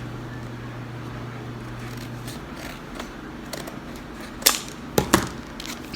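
Sealed plastic packaging of a pair of earphones being cut and pried open: a few sharp plastic snaps, three of them close together between about four and a half and five seconds in.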